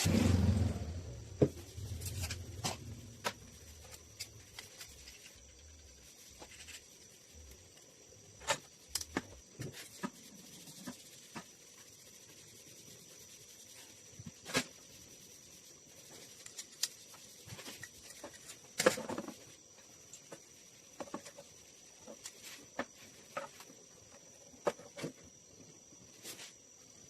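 A power drill winds down in the first second. After that come scattered light clicks and taps, with sharper knocks about 14 seconds and 19 seconds in, as small tools and parts are handled on the workbench.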